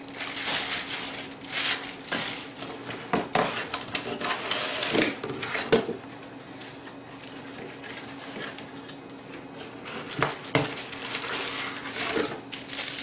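Packaging being handled while unpacking a camera box: crinkling plastic and bubble wrap and sliding cardboard, with scattered knocks and clatter as items are lifted out. The rustling is busiest in the first six seconds, then quieter, with a sharp knock about ten seconds in.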